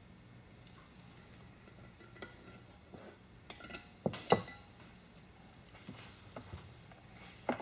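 Small metal clicks and clinks of hand work on an engine case, with the two loudest close together about four seconds in: lifter retaining clips being fitted over the lifters.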